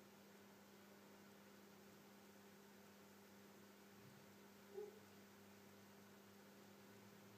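Near silence: a faint steady electrical hum, with one brief faint sound about five seconds in.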